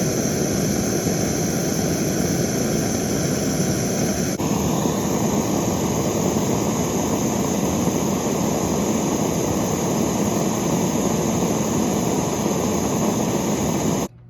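A loud, steady rushing noise, like air blowing, whose tone shifts abruptly about four seconds in and which cuts off suddenly near the end.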